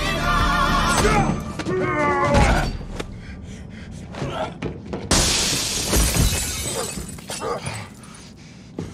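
A song with singing plays for the first two seconds or so and ends. Sharp knocks and thuds follow, then about five seconds in a loud crash of breaking glass that rings and dies away, and more sharp blows after it.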